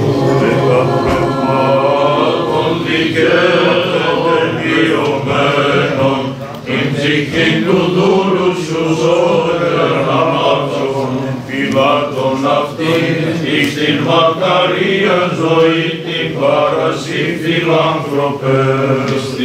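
Orthodox church choir singing polyphonic liturgical chant unaccompanied, several voices moving over a steady held low bass note.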